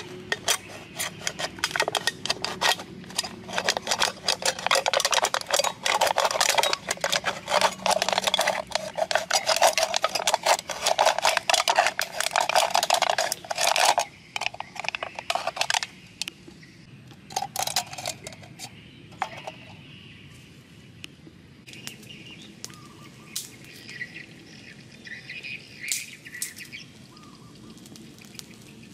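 A metal can-opener blade levering and cutting around the top of an aluminium beer can: rapid, loud scraping and clicking strokes for about the first fourteen seconds, then it stops. Afterwards, quieter outdoor background with faint bird chirps.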